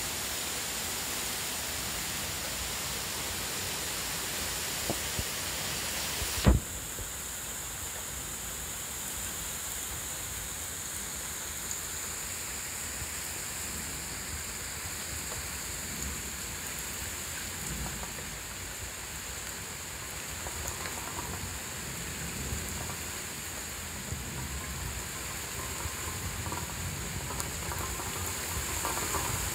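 Heavy rain falling in a steady hiss, with one sharp knock about six seconds in, the loudest moment, after which the hiss sounds duller.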